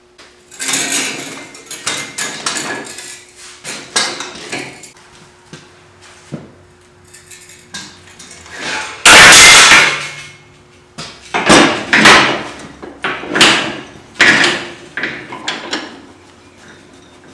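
Heavy 3/8-inch steel flat bar scraping and clanking against the cast-iron bed of a horizontal band saw as it is slid into place, with a loud metal crash about nine seconds in and several more hard clanks after it.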